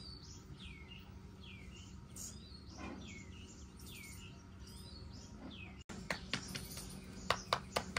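Small birds chirping, with short repeated call notes about once or twice a second. After a cut about six seconds in, a quick run of sharp clicks.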